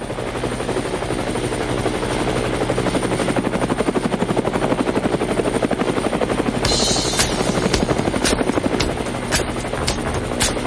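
Helicopter rotor chop, a fast steady beating over a low engine hum. About seven seconds in a brief hiss comes in, followed by sharp hits at an uneven beat.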